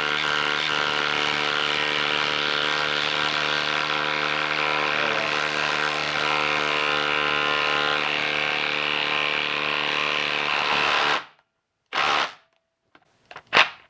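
Milwaukee M18 Fuel impact driver hammering a 6-inch lag bolt into a log with a steady rattling run. It stops about eleven seconds in, followed by a short burst and a couple of faint clicks.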